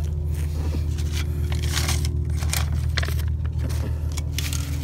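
Short scrapes and rustles as a flexible rubber lip strip is handled and shifted on a concrete driveway, over a steady low hum.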